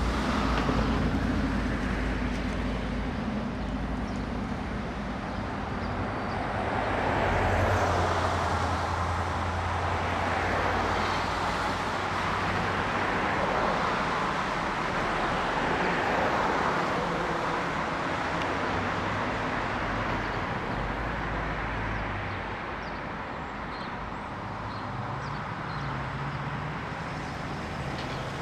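Road traffic: passing vehicles' engines and tyre noise, swelling and fading as they go by, with no siren or horn.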